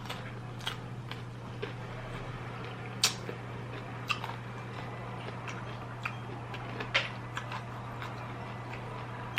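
A person eating a seafood meal: scattered soft clicks and smacks of chewing and handling the food, with two sharper clicks about three and seven seconds in, over a steady low hum.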